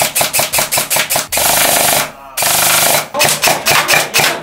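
Electric gearbox-driven M4 gel blaster (MK V2 CNC gearbox, M150 motor, Leviathan V2 fire control unit) firing in rapid bursts: strings of separate shots at about eight a second alternate with bursts where the shots run together into one unbroken stream, with a brief pause about two seconds in. Shooting really, really fast.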